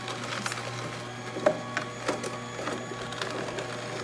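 ROIOS slow juicer on its hard setting, its motor humming steadily as the auger grinds carrots, with irregular sharp cracks as the carrot is crushed.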